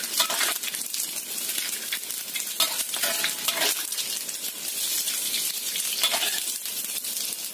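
Small anchovies sizzling and crackling in hot frying oil, with a utensil scraping and stirring through the pan several times as they are scooped out to drain.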